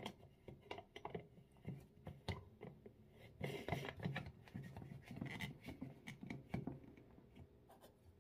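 Lid of a Thermos stainless-steel food jar being screwed on by hand: repeated small clicks and rubbing scrapes as the threads turn.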